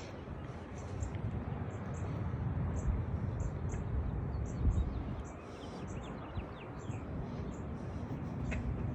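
Small birds chirping, short high calls repeated many times, over a steady low rumble.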